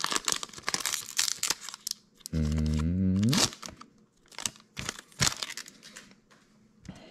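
Foil booster-pack wrapper crinkling and tearing as the cards are pulled out. Just over two seconds in comes a brief low hum that rises in pitch at its end. After it, trading cards are handled with light rustles and clicks.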